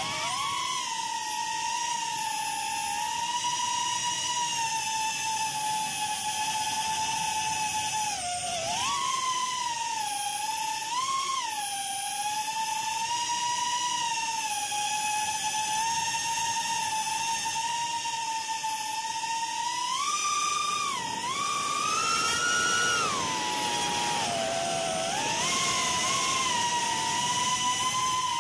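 FPV quadcopter's brushless motors and propellers whining steadily, recorded on board. The pitch rises briefly with throttle about 9 and 11 seconds in, rises again from about 20 to 23 seconds in, and dips about 25 seconds in.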